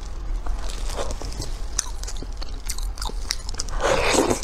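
Close-miked eating sounds of soft red-braised pork: scattered small wet clicks of mouth and chewing, then a louder, longer wet bite a little before the end.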